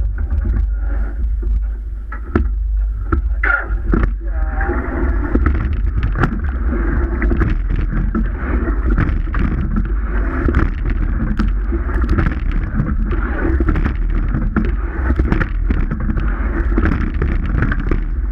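Water rushing along a rowing shell's hull as the crew rows, growing fuller a few seconds in. Wind buffets the microphone with a heavy rumble, and short knocks from the oars and rigging come again and again through the strokes.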